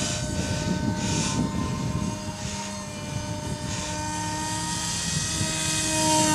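Small electric motor and propeller of a radio-controlled model plane whining steadily in flight, a thin drone that grows louder near the end as the plane comes closer. The motor is short of thrust for the plane.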